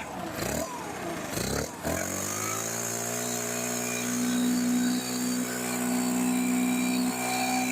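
STIHL BR600 backpack leaf blower engine, just fitted with a new carburetor and fuel lines, starting up. It runs unevenly for about two seconds, its pitch wavering up and down, then settles into a steady idle.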